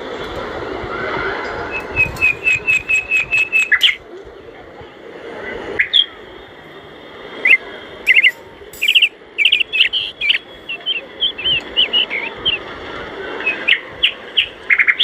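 Birds chirping: a quick, even run of about eight chirps, then after a pause a string of varied chirps and short whistles, over a steady low hiss.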